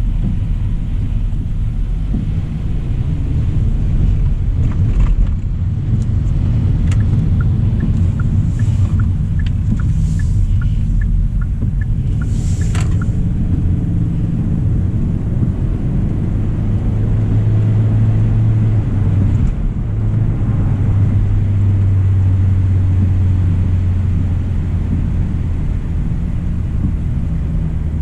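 A 2025 Hyundai Elantra SEL driving on wet roads: a steady low rumble of tyres and engine. In the middle come a few brief hissing swishes and a short run of light, evenly spaced ticks, and the rumble settles into a steadier low drone over the last third.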